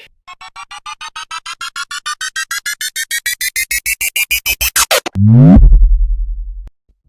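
Synthesized riser sound effect: a string of electronic tones that speeds up and climbs in pitch for about five seconds, then a loud, deep bass drop that slides down and holds for about a second and a half before cutting off.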